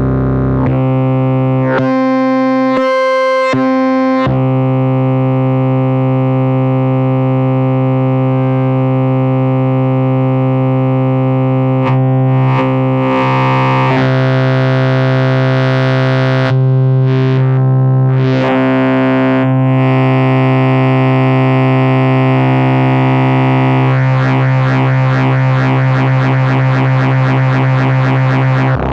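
Arturia V Collection software synthesizer patch holding a deep sustained drone rich in harmonics. Its tone brightens and darkens in a few short sweeps midway, and near the end it turns into a fast, rhythmic wobbling texture.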